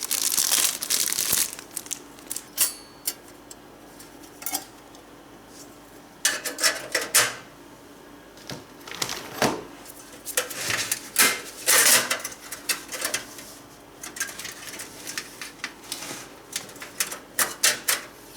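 Thin metal I/O shield being worked into a computer case's rear opening: irregular clicks, rattles and scrapes of sheet metal, coming in clusters with short pauses between.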